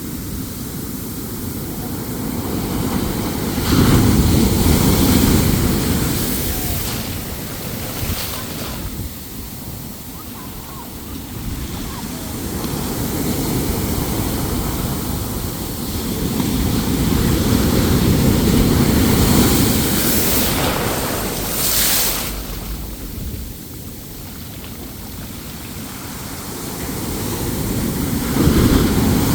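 Heavy ocean surf with big waves breaking, the roar of the water swelling up three times and falling back between them, with wind buffeting the microphone.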